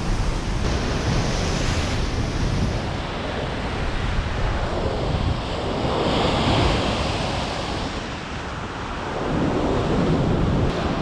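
Ocean swell surging and breaking against a rock ledge, whitewater washing in a continuous rush that swells louder about halfway through and again near the end. Wind buffets the microphone.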